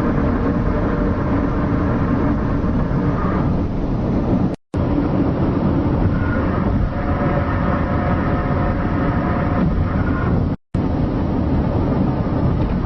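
Loud, steady low rumbling drone with faint wavering horn-like tones above it, typical of the 2011 'strange sounds' recordings, whose source is unexplained. It cuts out briefly twice, at splices between clips.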